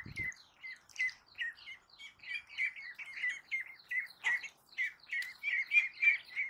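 Young ducklings peeping: a steady stream of short, high, falling peeps, several a second, from more than one bird, getting busier and louder near the end.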